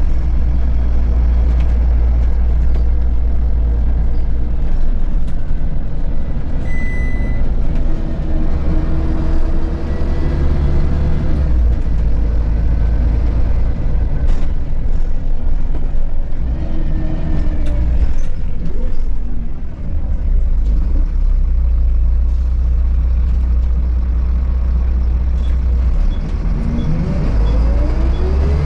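Inside a Volvo B7RLE bus under way: the rear-mounted diesel engine's steady low drone with road noise. A short beep comes about seven seconds in, and near the end the engine pitch rises as the bus accelerates.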